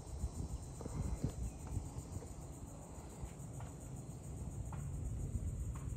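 Outdoor ambience: steady insect chirring with a low wind rumble on the microphone and a few faint, short bird-like chirps.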